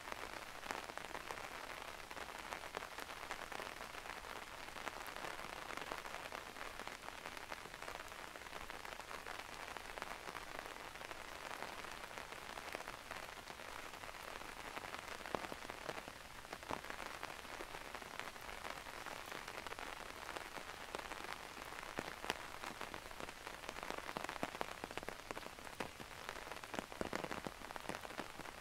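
Steady rain falling on a maple forest, an even hiss dotted with the sharp ticks of single drops landing close by.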